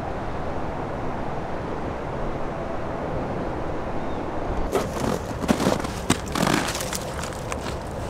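A steady low rumble of wind on the microphone. From about halfway through, a run of sharp clicks, knocks and scuffs sounds close by on the trestle's weathered wooden ties, as the camera is handled and set down on them and feet step on the planks.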